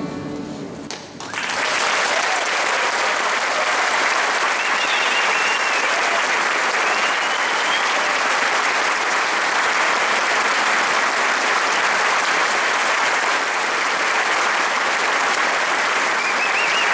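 Audience in a concert hall applauding steadily, breaking out about a second in as the last notes of the accordion and string orchestra die away.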